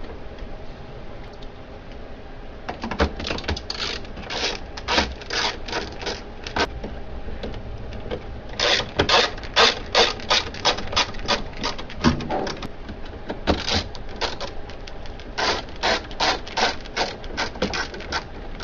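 Screwdriver driving three screws into the printer's fuser drive assembly: three runs of quick, evenly repeated scraping clicks, a few strokes a second, one run per screw.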